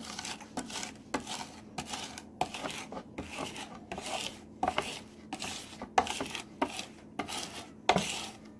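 Knife blade scraping and smearing garlic and salt against a cutting board, mashing the garlic into a paste, in repeated uneven strokes about two a second.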